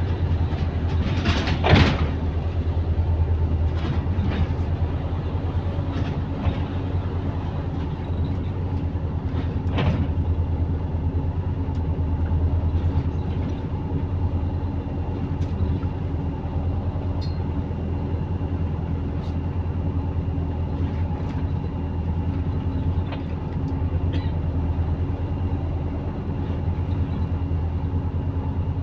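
Bus engine running steadily with a low hum, heard with the exhaust leak the bus is known for. About two seconds in there is one loud sudden clatter, and faint knocks and clicks come now and then.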